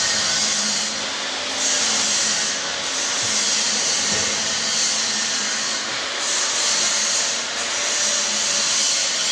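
A tobacco blending bin and its chain-and-sprocket drive running: a loud, steady machine hiss that swells and eases every second or two.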